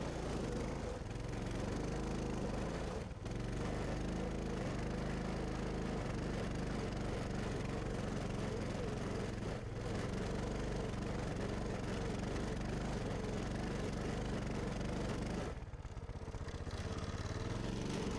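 Coleman 200 mini bike's single-cylinder four-stroke engine running under throttle as the bike is ridden, its pitch rising and falling with the throttle. It dips briefly about three and ten seconds in, and drops off for about a second near the end before picking up again.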